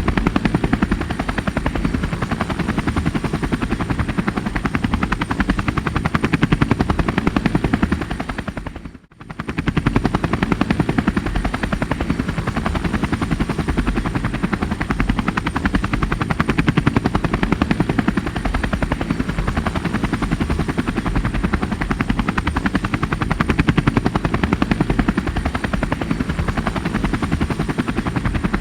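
Helicopter rotor beating steadily in a rapid, even chop, with a thin steady high whine above it. Near nine seconds in it fades out for under a second, then comes back at full strength.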